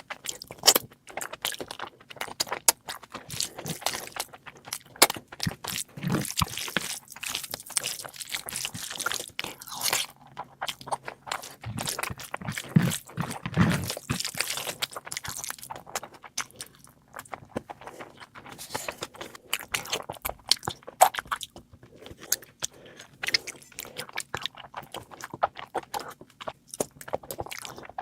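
Close-miked eating: chewing and biting, with many quick, irregular sharp clicks and crunches.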